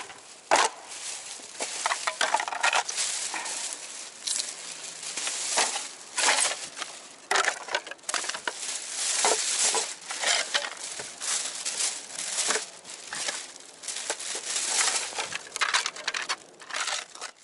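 Plastic garbage bag rustling and crinkling as broken pieces of painted plywood are stuffed into it, with the wooden pieces clattering against each other and feet crunching on gravel.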